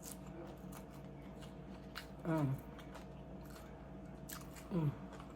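Crunching and chewing on tortilla-chip nachos, with a few sharp crunches and two short vocal sounds that fall in pitch, one in the middle and one near the end.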